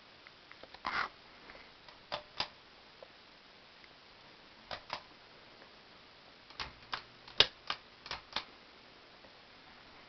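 Irregular light clicks and taps, about a dozen in small clusters, over a faint steady hiss.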